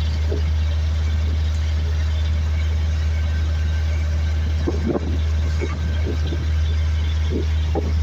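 Fishing boat's engine running steadily under way, a constant low drone, with water rushing along the hull.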